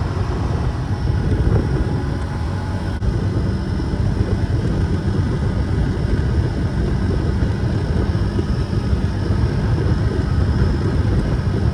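A motor vehicle's engine running steadily while driving, with wind and road noise, at an even, loud level.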